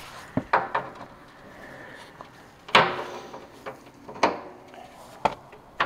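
Several sharp knocks and clanks at irregular intervals, the two loudest, about three and four seconds in, ringing briefly.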